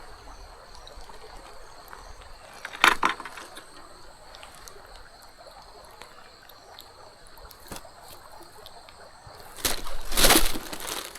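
River water running steadily, with two louder, sudden rushing noises: a short one about three seconds in and a longer one near the end.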